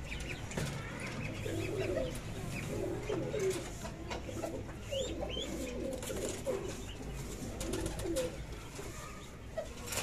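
Doves cooing over and over in low warbling calls, with a few short higher chirps mixed in about halfway through.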